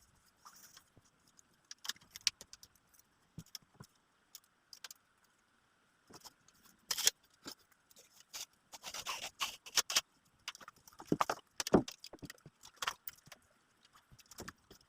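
Irregular metallic clinks and rattles of hand tools and parts being handled, busiest in the second half.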